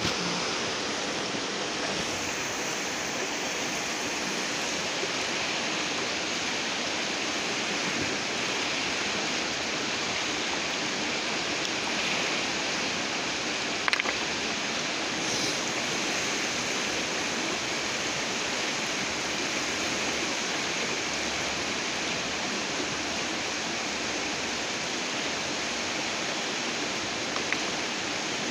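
Steady rush of a fast-flowing river, an even roar of water without a break, with a sharp click about halfway through.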